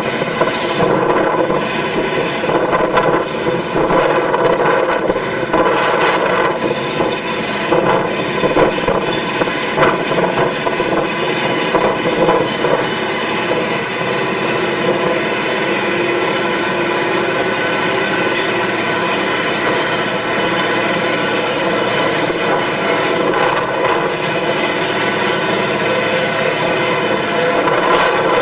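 Heavy farm machine's engine running steadily under load, with a dense mechanical drone.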